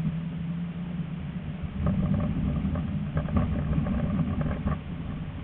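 Tram running along its track: a steady low motor hum, then from about two seconds in a louder rumble with rapid clattering from the wheels on the rails, easing off near the end.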